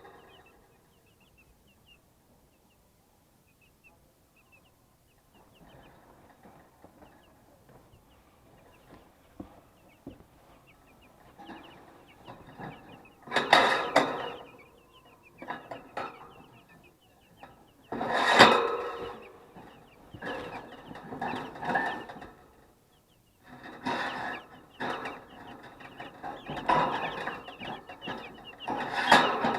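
A flock of 12-day-old broiler chicks peeping, short high chirps repeating, with several louder bursts of noise in the second half.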